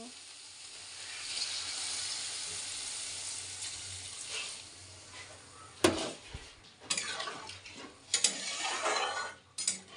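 Water poured into a hot kadai of fried-down cauliflower, a steady pouring hiss for about five seconds as it meets the hot pan. Then one sharp metal knock, the loudest sound, and several smaller knocks and scrapes of a utensil against the pan.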